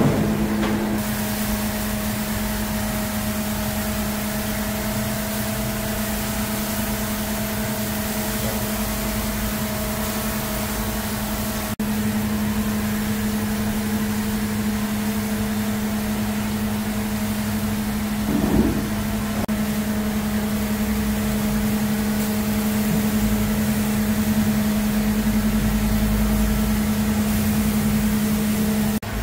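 Steady hum and hiss of restaurant kitchen equipment over a range where rows of stone dizi pots are boiling. There is a short louder sound about two-thirds of the way through.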